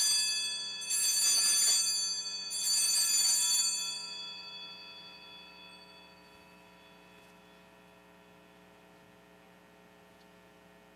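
Altar bells rung at the elevation of the chalice during the consecration. One ring is already sounding, two more come about a second and two and a half seconds in, and each shimmering ring dies away, gone by about five seconds in. A faint steady mains hum is left.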